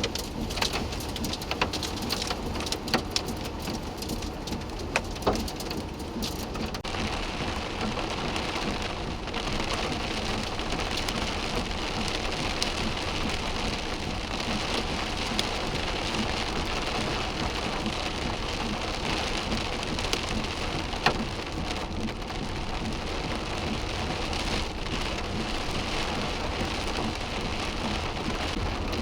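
Heavy rain falling, with scattered sharp taps on a surface in the first several seconds, then a steadier, denser downpour from about seven seconds in.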